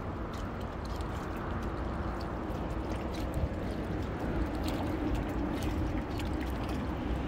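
Seawater washing and gurgling around shoreline rocks: a steady wash with small scattered splashes, and a faint steady hum through the middle.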